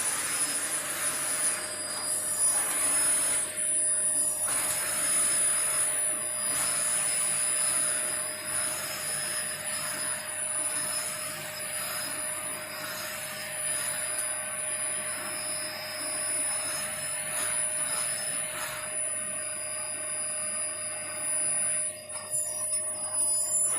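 Vacuum cleaner running steadily, its motor noise carrying a continuous whine; near the end the sound becomes choppy and uneven.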